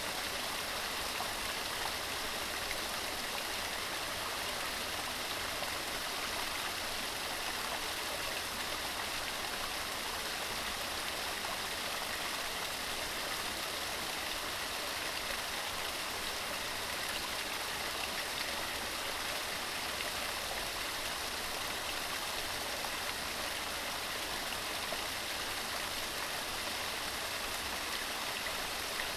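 Mountain stream running over rocks: a steady, even rush of water with no breaks.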